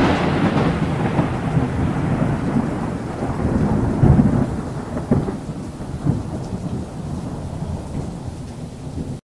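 Heavy rain with rolling thunder, loudest at the start and fading away, with a few smaller rumbles of thunder around the middle.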